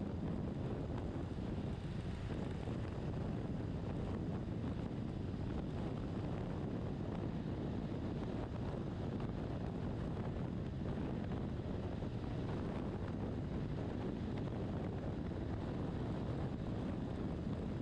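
Steady wind roar buffeting the microphone of a BMW R1200RT motorcycle riding at highway speed, with the bike's running engine and road noise underneath.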